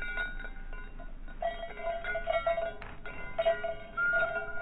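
Slowed-down jingling of small metal bells, the falconry bells on a Harris hawk. They come out as low, drawn-out chiming tones, struck again and again as the bird moves.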